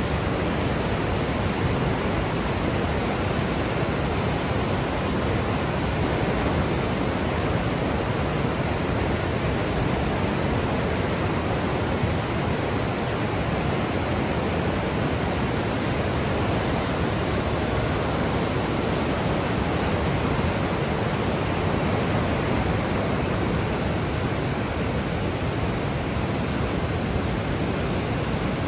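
Class 6 whitewater rapids of the Niagara River rushing: a steady, loud sound of churning water.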